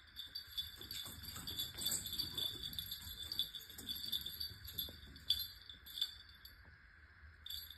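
A cat scampering and pouncing on a hard floor while chasing a laser dot: soft paw thumps and scuffs, with two sharper taps a little past the middle. A steady, faint, high tinkling ringing runs underneath.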